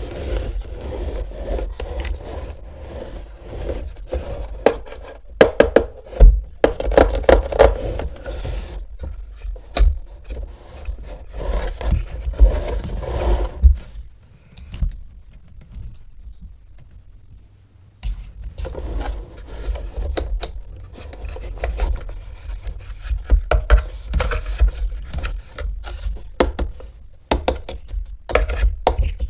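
Hands unpacking and handling plastic toy pieces and packaging: irregular scrapes, clicks and knocks, with a quieter stretch about halfway through.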